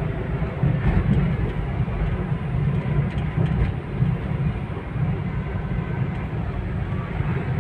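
Car driving on a road: a steady rumble of engine and road noise, deep and even, with no clear whistle standing out.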